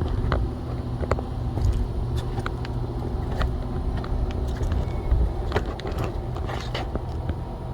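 Thunder Kart go-kart's small engine idling steadily, with a few light clicks over it.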